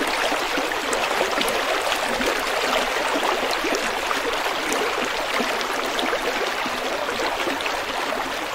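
Running water: a steady rush and babble of flowing, splashing water, with a fine crackle of small splashes throughout.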